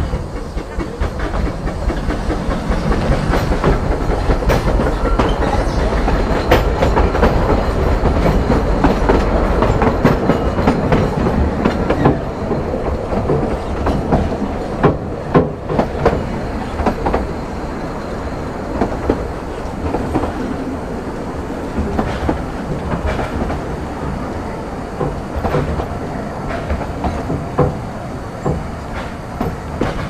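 Narrow-gauge steam train's open carriage running along the rails, its wheels clattering over the rail joints. A run of sharp clanks comes about halfway through, after which the running noise is somewhat quieter.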